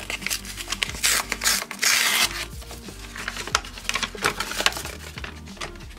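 Paper envelope being opened by hand: crinkling and rustling paper with many small crackles, and two louder rustles about one and two seconds in.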